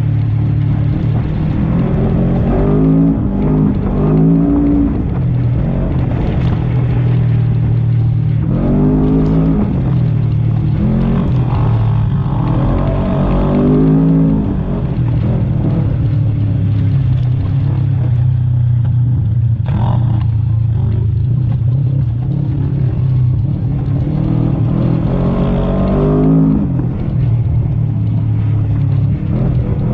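Segway Villain side-by-side UTV engine under load on a desert trail. It holds a steady drone, and its revs climb and drop several times as the throttle is worked.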